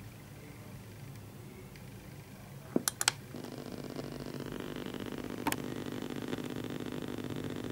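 A few sharp clicks, then a steady buzzing hum starts about three seconds in and keeps going: the unexplained 'strange noise' the recording was made to capture.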